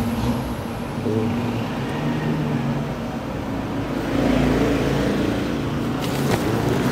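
Motor vehicle engines running, a steady low rumble with engine notes that shift in pitch, with a few sharp clicks near the end.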